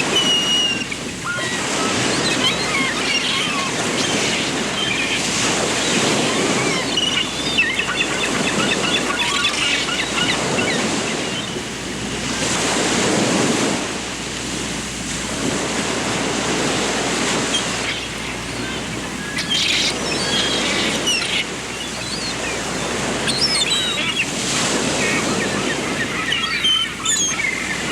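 Small birds chirping and twittering in quick short calls over a continuous rush of water that swells and ebbs every few seconds.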